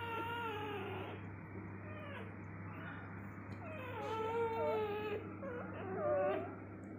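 Newborn golden retriever puppies crying and whimpering: thin, high, wavering cries, one held cry near the start and two wobbling cries in the second half.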